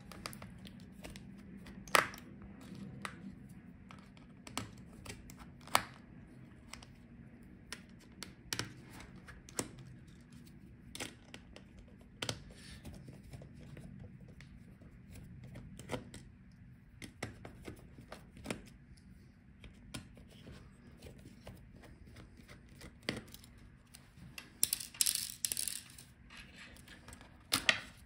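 Small precision screwdriver working screws out of a laptop motherboard, with scattered light clicks and taps of the metal tool on screws, the board and the plastic chassis. Near the end there is a brief, louder rustling scrape.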